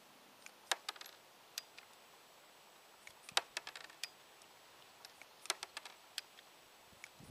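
Light metallic clicks and ticks of a Heritage Rough Rider single-action .22 revolver being reloaded: cartridges going into the cylinder through the loading gate as the cylinder is turned a chamber at a time. The clicks come in small irregular clusters.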